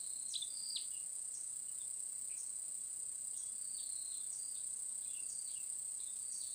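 Steady high-pitched drone of an insect chorus, crickets or similar, with short repeated chirps breaking over it at uneven intervals.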